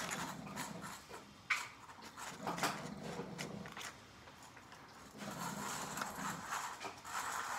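Wet cat food being fed out: a metal tablespoon scooping and clicking against the food bowls, with cats eating from cans and bowls. Scattered sharp clicks and short scrapes come and go.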